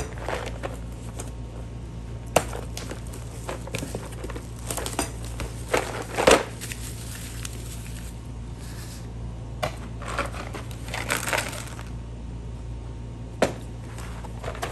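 Packaging being handled: crinkling and rustling with scattered sharp clicks and knocks, the loudest rustle about six seconds in, over a steady low hum.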